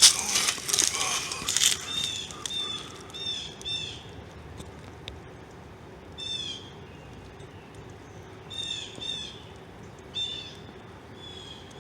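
Small bird singing: repeated short phrases of quick, high chirped notes every second or two. A few loud knocks and clicks in the first two seconds.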